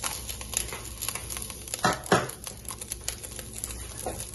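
Metal tongs clicking and scraping against a crinkling aluminium-foil cup as a burning charcoal lump is set into it on top of the chicken, with two louder knocks about two seconds in.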